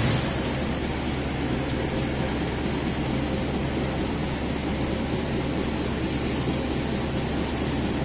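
1999 Yamada Dobby A-30H 30-ton high-speed stamping press running continuously at about 266 strokes a minute: a steady mechanical din with a low hum.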